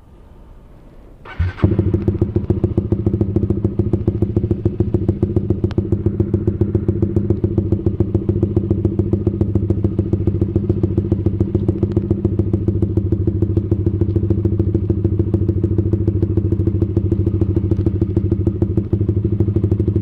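Motorcycle engine starting about a second and a half in, then idling steadily through a Leo Vince GP Corsa Shorty slip-on exhaust run without its dB killer (open pipe).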